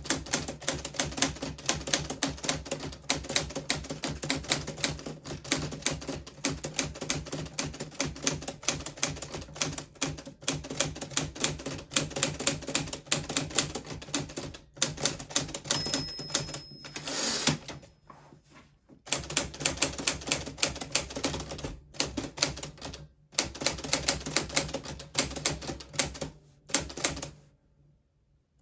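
1940s Smith Corona Silent manual typewriter being typed on steadily, a fast run of key strikes broken by a few short pauses and one longer pause near the end.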